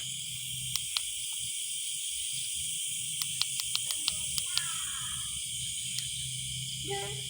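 Steady high-pitched chorus of crickets and other insects, with a few sharp clicks about a second in and a quick run of about eight clicks around the middle.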